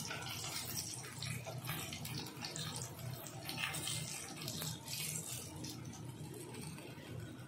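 Hot oil sizzling and crackling in a frying pan around fried katla fish steaks as they are lifted out, over a steady low hum.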